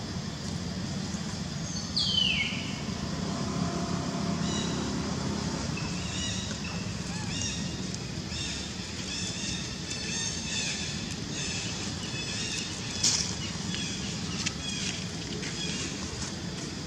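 Birds chirping in short, repeated high calls over a steady low hum, with one high call falling steeply in pitch about two seconds in and a single sharp click near the end.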